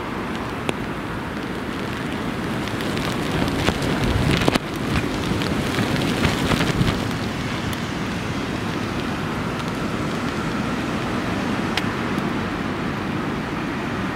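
Storm wind and rain buffeting the microphone, with the strongest gusts about four to seven seconds in. An approaching Boeing 757-200 on final approach adds a faint engine whine that climbs slowly in the second half.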